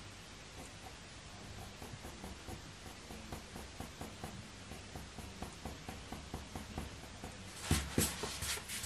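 Faber-Castell Polychromos coloured pencil scratching over hot-press watercolour paper in short, quick strokes, about three or four a second. Near the end come a few louder brushing rubs against the paper.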